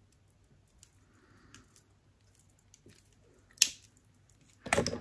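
Small make-up items being handled: faint scattered taps, one sharp click about three and a half seconds in, and louder handling noise near the end.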